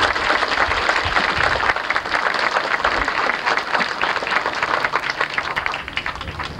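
Crowd applauding: many hands clapping in a dense, even patter that tails off near the end.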